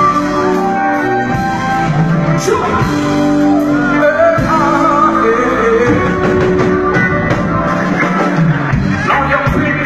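Live band music with a singer, guitar among the instruments; the singer holds a wavering note about four seconds in.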